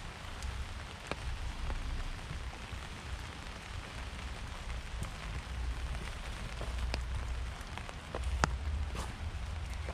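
Rain falling: an even hiss with scattered sharper drop clicks, the loudest a little before the end, over a steady low rumble.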